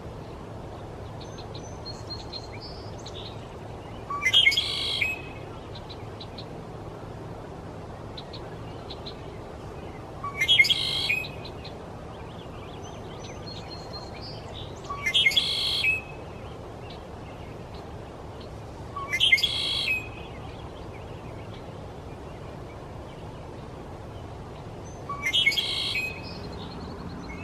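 Male red-winged blackbird singing its harsh, trilling konk-la-ree song five times, about every five seconds. Each song is preceded by a few soft short notes.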